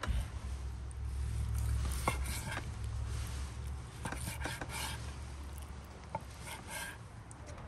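Kitchen knife slicing through raw lamb heart and knocking on a wooden cutting board: short cutting strokes in small clusters about two seconds in, around four seconds in, and again near the end, over a steady low rumble.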